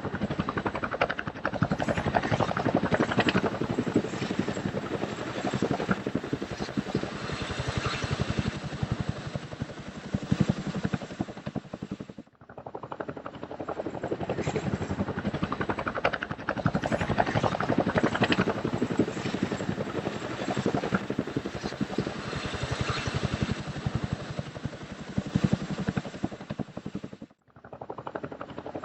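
Helicopter rotor and engine noise, a steady dense din with a fast, even pulsing of the blades. It cuts out briefly twice, about twelve seconds in and again near the end, then resumes.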